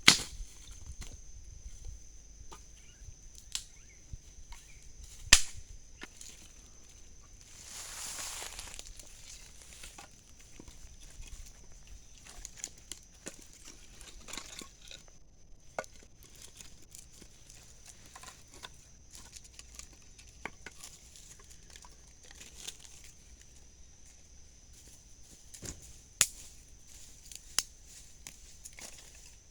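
Steady high-pitched trilling of night insects, with scattered sharp clicks and knocks, a loud click about five seconds in, and a brief rustle about eight seconds in.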